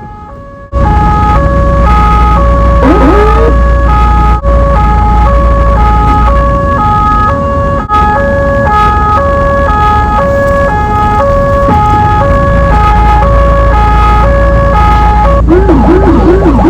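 Indonesian ambulance siren cutting in just under a second in with a two-tone hi-lo pattern, switching between a high and a low note about every two-thirds of a second over a steady low rumble. Near the end it changes to a fast yelp, rising and falling about three times a second.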